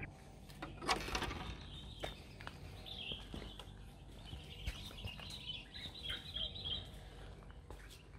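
Small birds chirping and twittering outdoors, strongest in the middle of the stretch, with a brief rattle about a second in.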